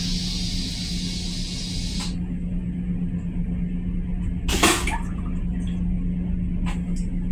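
Stainless-steel toilet on an M7 commuter railcar flushing: a high hiss of rinse water that cuts off about two seconds in, then a short loud whoosh a couple of seconds later, over a steady low hum of the car.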